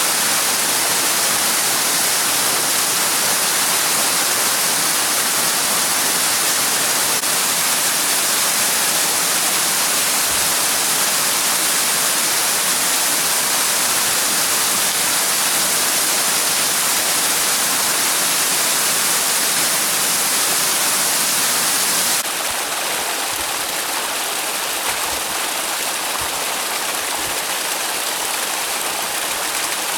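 Spring-fed waterfall: falling water making a steady rushing hiss. About two-thirds of the way through it steps down a little quieter.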